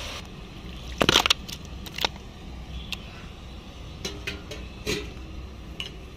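Kitchenware being handled: scattered knocks and clinks, a loud cluster about a second in, then several lighter taps, over a low steady hum.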